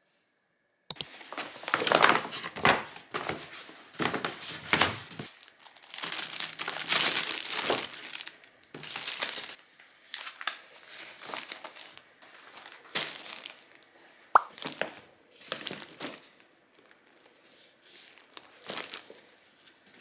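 Packaging being crinkled and torn by hand in irregular rustling bursts, starting about a second in, with a single sharp click near the middle.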